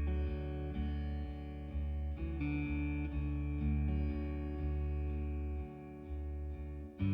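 Background music: a guitar playing slow, held notes that change every second or so.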